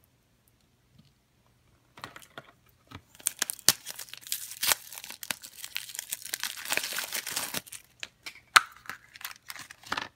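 Plastic packaging of a toy blind-pack pumpkin being crinkled and torn open by hand. It starts after a couple of seconds of quiet, is densest in the middle, and has one sharp click near the end.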